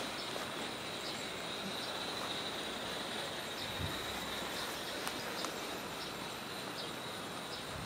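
Small garden-railway model train rolling along its track: a steady hiss with faint, irregular light ticks, and a soft low thump about four seconds in.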